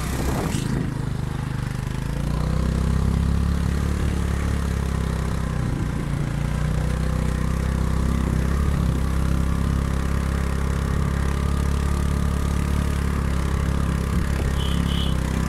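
Motorcycle engine running steadily at a constant pitch.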